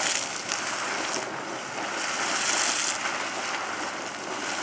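Super Frying Pan Geyser erupting at close range: a steady rushing hiss of spraying water and steam, swelling slightly about two seconds in.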